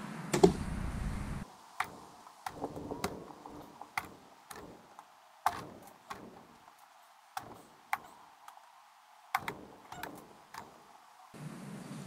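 Fish being handled and dropped into a foam cooler: a string of about a dozen short knocks and thuds at uneven intervals, roughly one a second, with one louder thump about half a second in.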